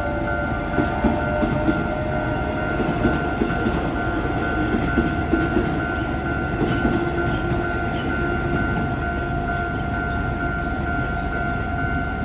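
Taiwan Railway EMU500 electric commuter train running on the track, its wheels clacking over rail joints, loudest in the first half. A steady high tone is held throughout.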